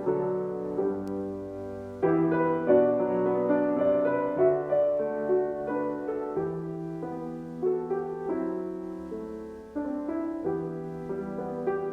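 Solo piano playing a slow hymn tune in sustained chords, with fresh chords struck about every second.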